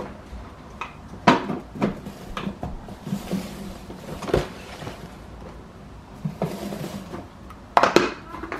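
Clear plastic cereal storage containers and their lids being handled and set down on a counter: a few separate clacks and knocks, the loudest pair near the end.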